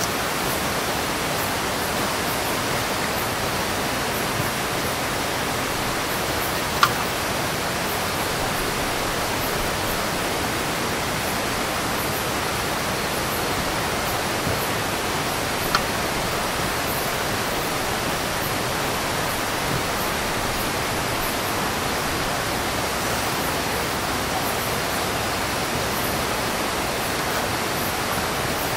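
Steady, even rush of flowing river water. Two short sharp clicks stand out over it, about seven and sixteen seconds in.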